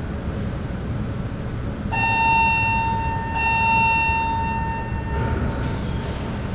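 Empty high-rise room tone with a steady low rumble of distant city traffic. About two seconds in, a distant horn-like tone sounds and is held for about three seconds, dipping briefly partway through.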